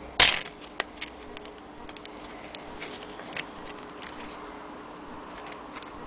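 Antique Willcox & Gibbs sewing machine being handled: one sharp loud click near the start, then scattered light clicks and taps over a faint steady hum.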